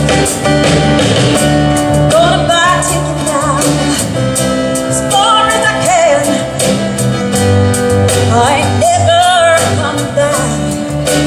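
A woman sings a song into a microphone over strummed acoustic guitar and a steady bass line, her sung phrases coming in about two seconds in, again around five seconds and once more near eight seconds, with vibrato on the held notes.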